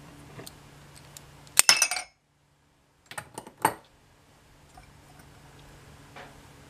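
The metal float bowl of a Honda GCV160 carburetor clinking against a ceramic cup as it comes off the carburetor: a quick cluster of bright clinks about one and a half seconds in, then a few more sharp clicks about a second later.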